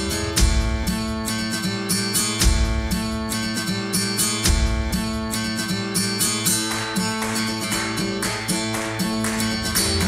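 Background music led by strummed guitar, with a steady beat and bass line.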